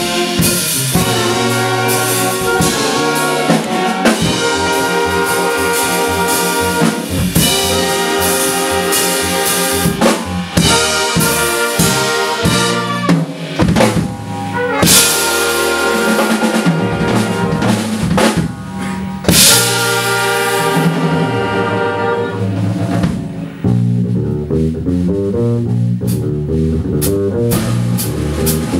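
A jazz big band playing a funk tune, with saxophones and trumpets over a driving drum kit and guitar. The band thins out about two-thirds of the way through to a lower, sparser groove over the drums.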